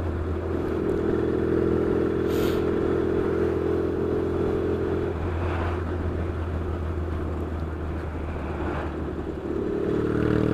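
Yamaha XS650 parallel-twin engine under way through loud pipes. It holds a steady note, eases off about halfway, then rises again near the end as the throttle is opened.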